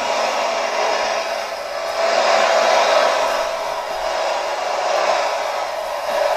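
Pulling tractor's engine running flat out under load, a loud steady noise with little low end that swells about two seconds in.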